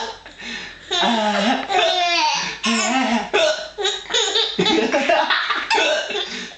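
A baby laughing in short bursts, mixed with hiccups from the baby and from an adult hiccupping back at him.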